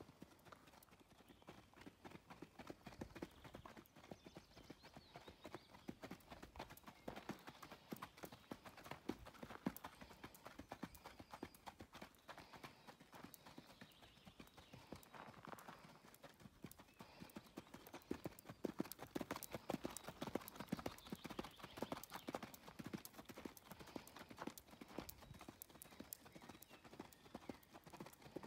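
Hoofbeats of a ridden Icelandic horse on a sand arena: a quick, continuous run of soft hoof strikes, growing somewhat louder in the second half.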